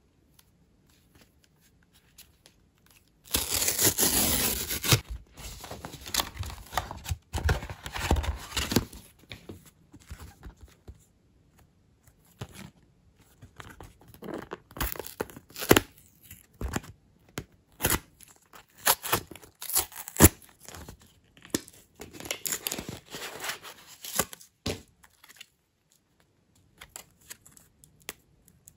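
Camera packaging torn and crinkled by hand: a loud rip a few seconds in, then on-and-off rustling and crinkling with sharp crackles, stopping a few seconds before the end.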